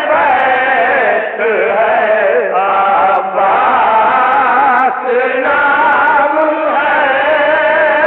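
Male voice chanting a Lucknowi nauha, a Shia lament in Urdu, with no instruments. The melody is long-held and wavering, broken by short pauses between phrases. The recording is old and muffled, with no high end.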